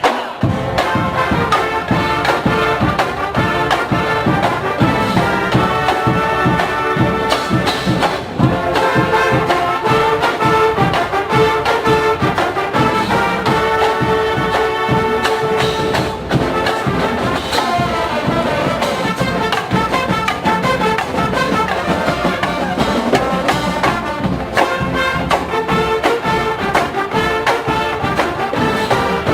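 College marching band playing a brass tune, trumpets and trombones over drums keeping a steady beat.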